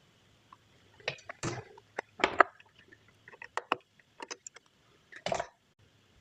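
Irregular clicks and knocks of objects being handled, one after another, with a few short scraping rattles; the loudest is about two and a half seconds in.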